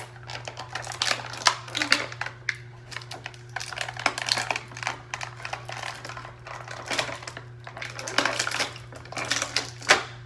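Stiff plastic blister packaging and cardboard of an action-figure box being handled, giving irregular crinkles and sharp clicks as the figure and its plastic tray are worked free, over a steady low hum.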